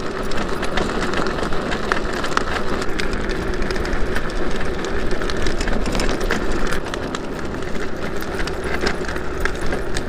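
Electric drift trike riding along asphalt: a steady rolling rumble from its hard plastic-shelled rear wheels, with a scatter of small rattles and clicks.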